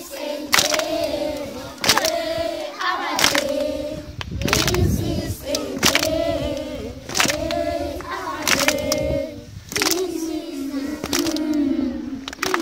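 A group of young children singing a song together in unison, clapping their hands on a steady beat about every 1.3 seconds; the claps are the loudest sounds.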